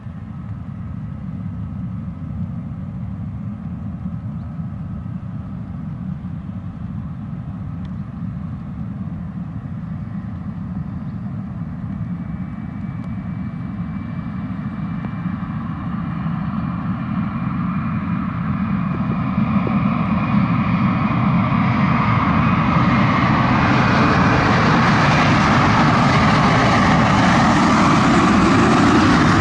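Twin jet engines of an Airbus A321 at takeoff power during its takeoff roll: a steady low rumble with a high whine, growing steadily louder as the jet comes closer, until it is a full, loud roar over the last several seconds.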